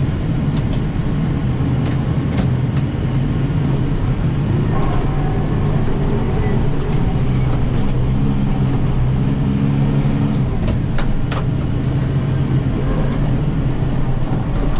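Kubota M7060 tractor's diesel engine running steadily, with a few sharp clicks, most of them about ten seconds in.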